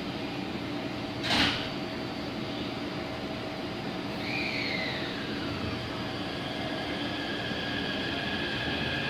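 Taipei Metro 381-type electric train starting to pull out: a brief loud hiss about a second and a half in, then near the middle the propulsion whine begins with a falling tone and settles into steady high tones as the train starts moving.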